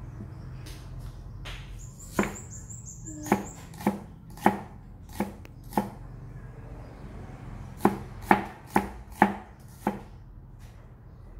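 A kitchen knife slicing shallots on a thick wooden chopping board: eleven sharp knocks of the blade on the wood in two runs, roughly two a second.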